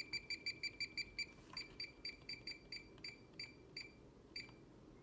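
Graphical digital multimeter beeping on each button press as the cursor is stepped along a recorded trend graph: a fast run of short high beeps, about five a second, then slower single beeps that stop shortly before the end.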